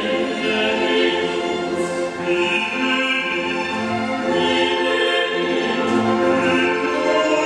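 Mixed choir and string orchestra performing together: the choir sings slow, held chords over the strings.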